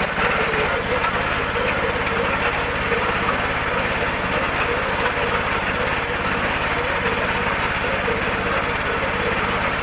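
A small engine running steadily at a constant speed, with an even low hum and no change in pace.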